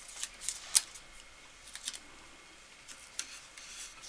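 Masking tape being handled and pressed onto the wooden stretchers of a chair: a series of light crackles and clicks, the sharpest just under a second in.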